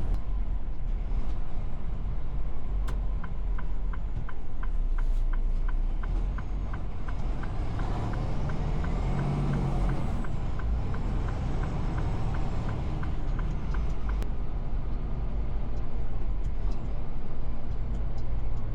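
Semi truck's diesel engine running steadily. From a few seconds in until about three quarters of the way through, an even ticking at about three ticks a second sounds over it.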